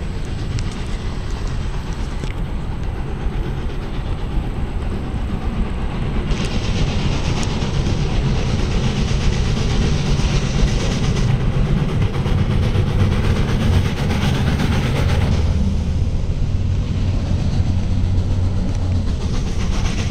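Santa Fe 3751, a 4-8-4 steam locomotive, running past on the tracks below with its train: a heavy, steady rumble of engine and wheels on rail that grows louder about a third of the way in, with a hiss that comes and goes in the middle.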